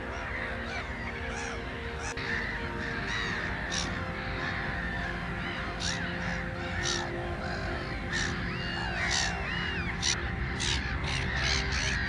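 A flock of gulls calling: many harsh, overlapping cries without a break, with short sharp squawks standing out again and again.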